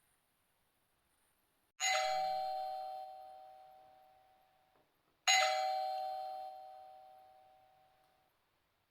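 Doorbell chime struck twice, about three and a half seconds apart; each strike rings a steady pair of tones and fades away over about three seconds.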